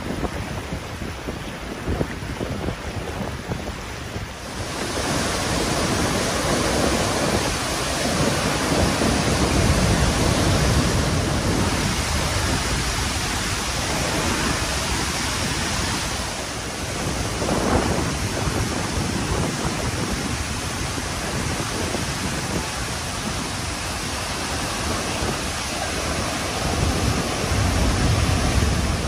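Rushing river rapids, then about four seconds in a louder, fuller steady rush of a large waterfall close by.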